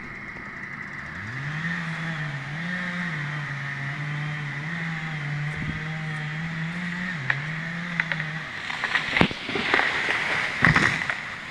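An engine revs up about a second in and runs with its pitch stepping up and down, then stops; right after, a quick series of sharp cracks and snaps, the loudest about two seconds later.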